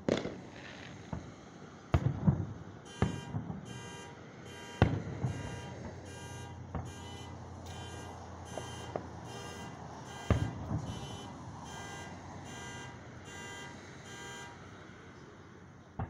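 Aerial firework shells bursting with sharp booms, several in the first five seconds and another about ten seconds in. From about three seconds in, a car alarm sounds in evenly repeated pulses, roughly one and a half a second, and stops shortly before the end.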